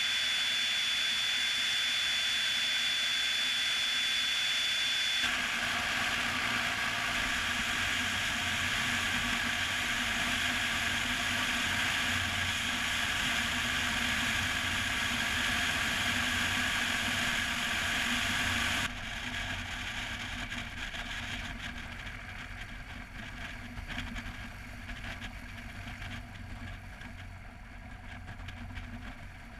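Piper Cherokee's engine and propeller running at low power with wind rush across an outside-mounted microphone, through touchdown, rollout and taxi. A thin steady high tone sounds for about the first five seconds; a low rumble joins from about five seconds in, and about two-thirds through the sound drops and keeps fading as the plane slows.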